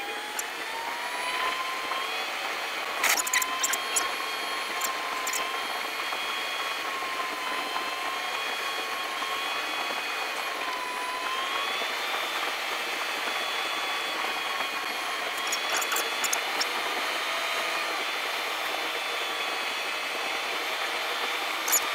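Car interior sound while driving in rain, played back sped up, so the engine and road noise become a steady high whine that drifts slowly up and down in pitch over a hiss. A few sharp clicks come through, about three seconds in, around five and sixteen seconds, and near the end.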